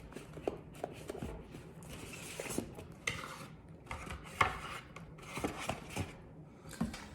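Small plastic drone accessories and their packaging being handled and put back into a box: scattered light clicks, knocks and rustling.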